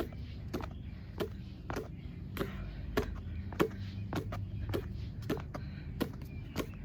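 A basketball handled in a figure-8 ball-handling drill, a sharp smack about every 0.6 seconds as the ball meets the hands, over a steady low hum.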